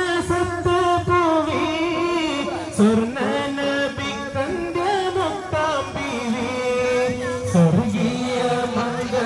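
Melodic singing of a devotional song, with long held notes that bend between pitches.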